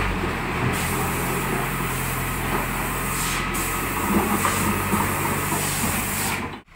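JCB 3D backhoe loader's diesel engine running as the machine moves, a steady engine drone under a hiss, cutting off suddenly near the end.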